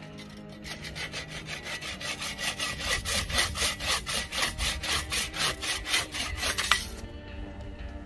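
Bow saw cutting through a branch on a metal sawhorse, with quick, even back-and-forth strokes that stop about seven seconds in as the piece is cut off.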